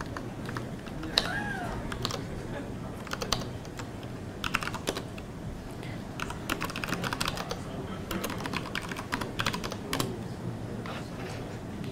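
Typing on a MacBook Pro laptop keyboard: irregular runs of quick key clicks with short pauses between them, over a low room hum.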